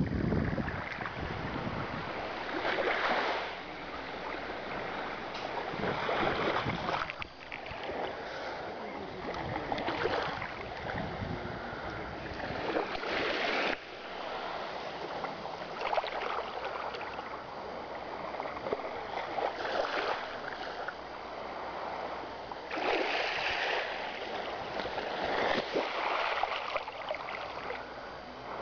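Small sea waves washing onto a beach: a steady rushing, with a swell of hiss every few seconds as each wave breaks and runs up the sand.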